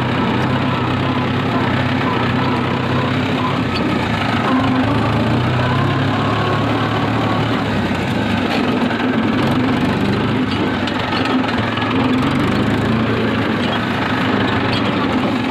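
Old Mahindra 575 tractor's diesel engine running steadily with an even, knocking beat as the tractor drives along.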